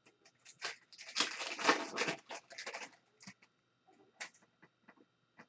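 Trading cards and pack wrappers being handled during a hockey card pack break: a dense patch of rustling and flicking clicks lasting about two seconds, then a few scattered single clicks.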